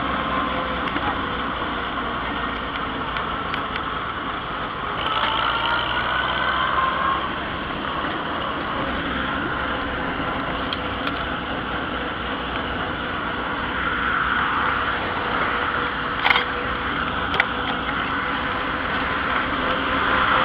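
Green John Deere tractor's engine running steadily as it drives along, with a steady hum under a wash of wind and road noise. Two sharp knocks from the phone being handled come near the end.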